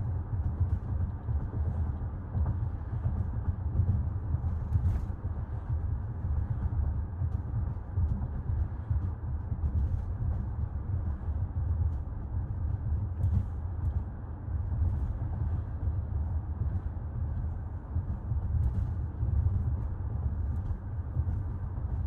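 Steady low road and tyre rumble of a 2024 Toyota RAV4 Limited driving along, with a few faint clicks.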